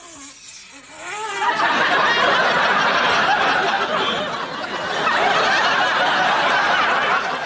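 Studio audience laughing, swelling up about a second in and carrying on loudly.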